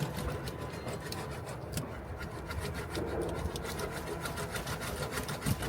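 A hand roller pressed hard and rolled back and forth over foil-faced vibration-damping sheet on a car's floor pan, making a rasping rub with a quick run of clicks, to flatten it and drive out air bubbles.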